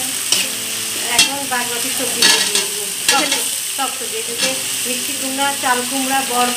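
Metal spatula stirring and scraping spice paste that sizzles in oil in a steel karahi, the masala being sautéed; about four seconds in, chopped vegetables are tipped into the pan.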